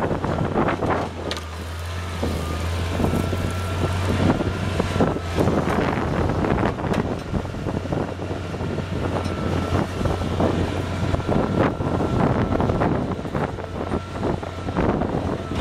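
Bobcat 743 skid-steer loader's engine running steadily under load with a thin high whine, while its root-digger bucket digs into the ground at the roots of small trees, with irregular knocks and clatter throughout.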